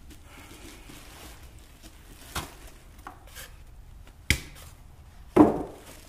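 Sharp knocks and taps of a just-unboxed Mr. Heater infrared electric heater being handled: three separate knocks over the second half, the last the loudest.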